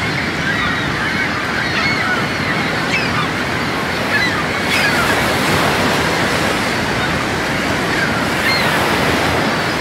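Rough surf breaking along a sandy beach, a steady rushing wash of waves stirred up by a passing storm, with faint short high chirps here and there.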